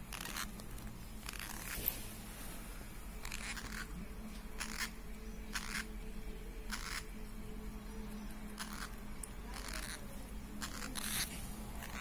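Parrot chicks making short scratchy sounds, roughly one a second, over a steady low hum.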